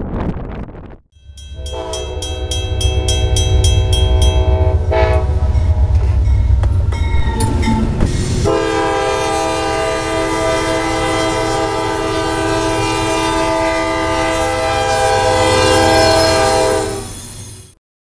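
Train air horn sounding long, steady chords: one held blast over a low engine rumble, a short changing stretch, then a second, longer held blast that fades out near the end.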